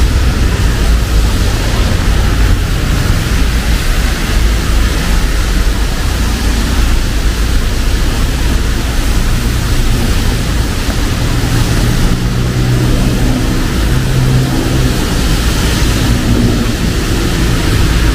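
Rain and road traffic on a wet city street: an even hiss of rain and tyres over a heavy low rumble. About halfway through, a low droning hum joins in.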